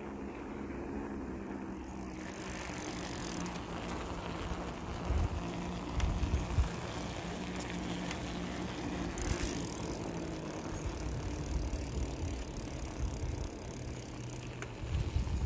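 1983 Redline 600A BMX bike being ridden on asphalt, its knobby tyres rolling steadily. Wind buffets the microphone in a few short gusts partway through.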